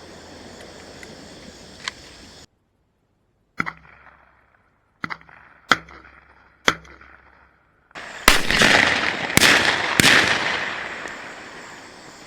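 Shotgun shots at doves: four sharp single reports a second or so apart, then three louder ones in quick succession, each trailing off in a long rolling echo.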